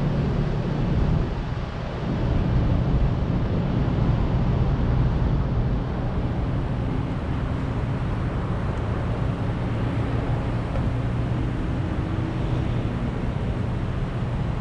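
Car running with steady engine and road noise, a low hum that dips briefly about two seconds in and is louder for a few seconds after.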